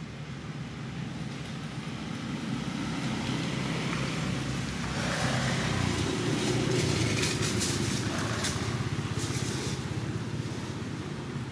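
A motor vehicle going past: a low engine rumble that swells to its loudest a little past the middle and then eases off, with a few sharp clicks near the peak.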